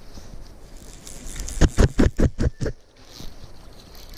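Steady rush of river current, with a quick run of about six sharp knocks and rubs close to the microphone about one and a half seconds in.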